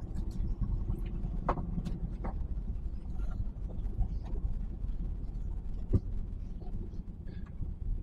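HGV lorry's diesel engine and road noise heard from inside the cab as it drives along, a steady low rumble with a few light clicks and rattles and one sharper knock about six seconds in.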